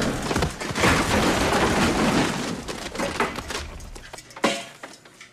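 A tall bookcase toppling over: a long crashing clatter of books and shelving pouring onto the floor for about four seconds, dying down, then one last sharp thump about four and a half seconds in.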